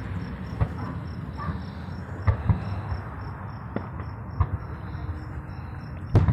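Crickets chirping steadily, about three chirps a second, over a low rumble. There are scattered faint knocks, and a sharp bang near the end is the loudest sound.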